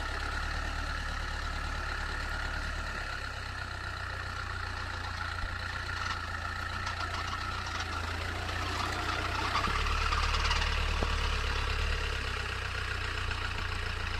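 Land Rover Santana 88 Súper engine running steadily at low speed, swelling louder for a couple of seconds around the middle before settling back.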